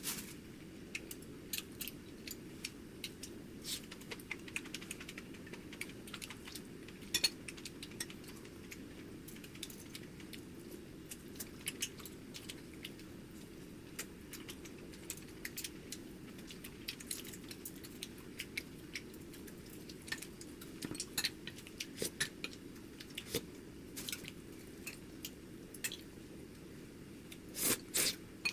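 Kitchen cooking sounds: irregular light clicks and clinks of utensils and dishes being handled, over a steady low hum.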